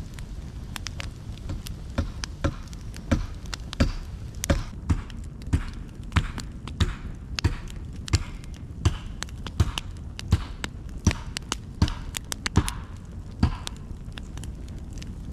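Wood campfire crackling: sharp, irregular pops and snaps from the burning log rounds, a few each second, over a steady low rush.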